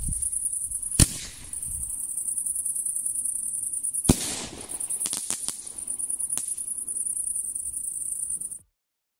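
An aerial firework shell fires from the ground with a sharp bang about a second in and bursts with a louder bang about three seconds later, followed by a few small crackles as the stars fall. Crickets chirp steadily behind it, and all sound cuts off shortly before the end.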